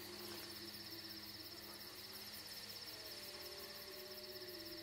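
Crickets chirping in a faint, steady, rapidly pulsing trill, with a few faint low held tones underneath.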